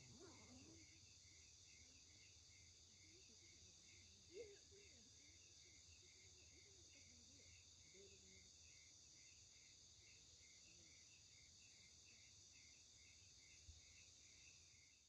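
Faint chorus of night insects: a steady high trill with a pulsing chirp, several beats a second, beneath it.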